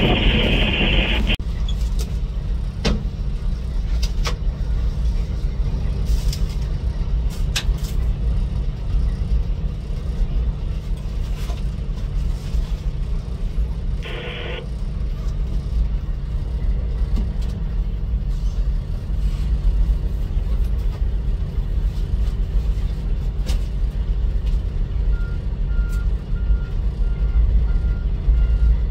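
Steady low rumble heard from inside a train cab. There is a short burst of brighter sound at the start and another about 14 seconds in. Near the end, an evenly paced beeping from a track machine's reversing alarm starts.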